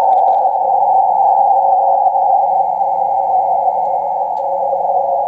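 Shortwave receiver audio through a narrow CW filter: a steady hiss of noise squeezed into a band of a few hundred hertz, with no clear Morse keying. The operator takes it for QRM, interference swamping the band.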